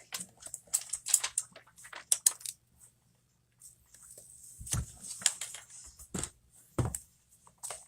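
Handling noise as an iPhone XS Max and its packaging are picked up and turned over on a table: a run of short clicks and rustles, a brief pause, then two dull thumps.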